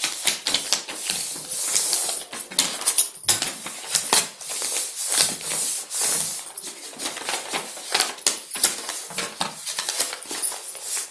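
Stiff chart paper rustling and crackling as it is handled, folded and creased by hand, a dense irregular run of crisp rustles and clicks.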